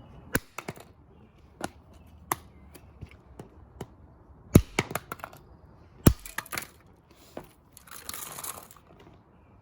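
A plastic power adapter being smashed: a series of sharp knocks and cracks, the loudest about four and a half and six seconds in, then a brief grinding crunch near the end.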